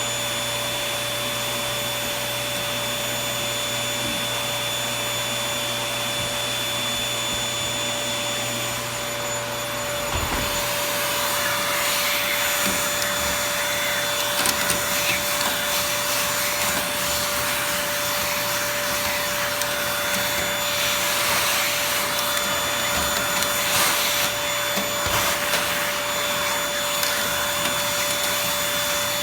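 Toshiba VC-PB9 vacuum cleaner running continuously: a steady rush of air with a constant whine. About ten seconds in it grows slightly louder and rougher.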